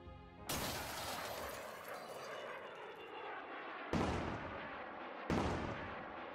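Three sudden booming hits, explosion-like sound effects, each a sharp crash that dies away slowly over a second or more: about half a second in, about four seconds in, and about five seconds in.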